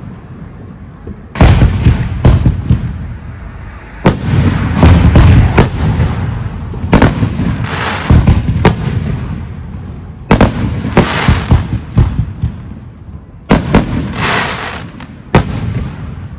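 Professional aerial fireworks display: shells bursting overhead with about ten sharp bangs at irregular intervals, each trailed by a deep rolling rumble.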